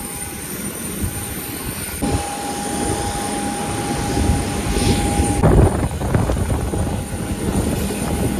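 Jet airliner noise on an airport apron: a steady whine over a rough low rumble. The whine grows louder abruptly about two seconds in and stops about five and a half seconds in.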